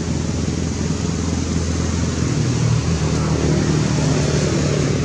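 A motor vehicle engine running close by: a steady low hum that grows a little louder in the second half.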